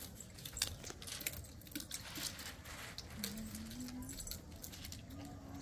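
Scattered light clicks and ticks, with a faint low tone for about a second in the middle.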